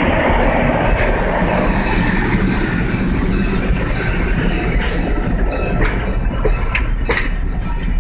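A train rolling through a grade crossing, its wheels squealing on the rails, with a run of sharp clacks in the second half.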